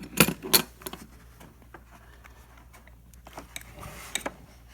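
Mechanics tool set case being unlatched and opened: a few sharp clicks in the first second, then scattered lighter clicks and knocks.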